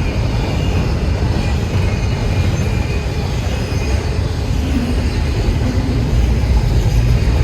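Freight train rolling past, a steady loud rumble of cars on the rails.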